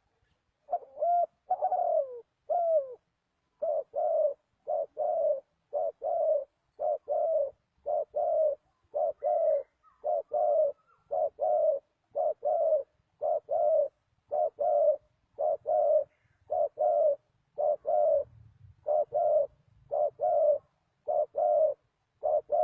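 Spotted dove (tekukur) cooing: a long run of short, repeated coos, about two a second, starting about a second in.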